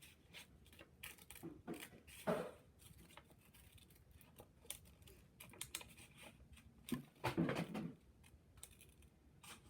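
Scissors snipping through paper in short, irregular cuts, with the paper rustling as it is handled; the busiest stretch of cutting and handling comes around seven to eight seconds in.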